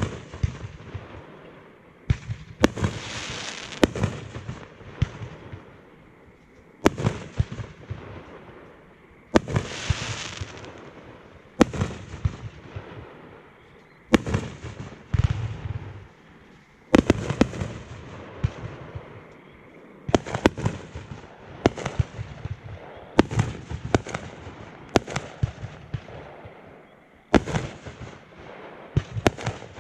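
Fireworks show: aerial firework bursts going off in a steady series of sharp bangs every second or two. After a couple of the bursts comes a longer hiss.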